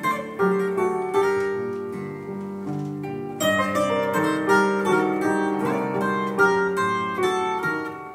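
Instrumental music on piano and a plucked mandolin-type string instrument: a run of quick picked notes over held chords.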